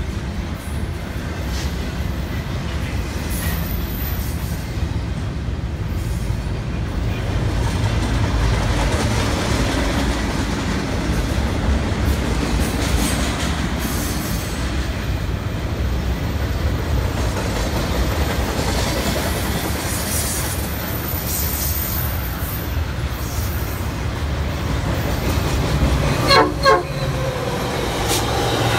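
Double-stack intermodal freight cars rolling past at speed: a steady heavy rumble of wheels on rail with some clickety-clack. Near the end a train horn sounds two short blasts, and the noise of another train rises.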